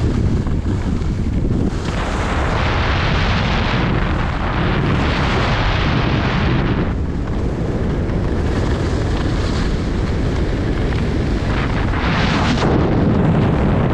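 Heavy wind buffeting on the microphone of a camera carried by a skier going fast downhill, a constant low rumble. Over it comes the hiss of skis carving on packed snow, which swells during turns a few seconds in and again near the end.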